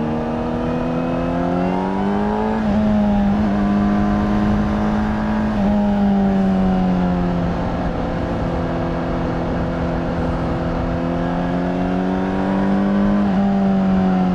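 Honda CBR600RR's inline-four engine through its stock exhaust, ridden on the road: the engine note climbs and drops sharply with upshifts about three and six seconds in, eases off and holds steady, then climbs again to another shift near the end.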